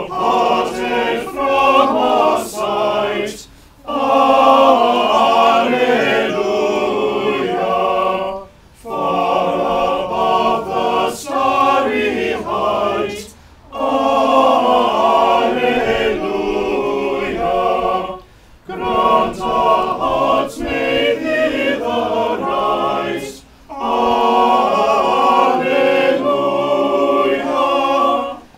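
Small choir singing unaccompanied, in phrases of about five seconds with a short pause for breath between them.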